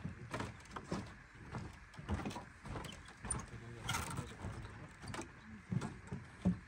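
Irregular footsteps and knocks on a wooden boardwalk, a few short thuds a second over faint outdoor background.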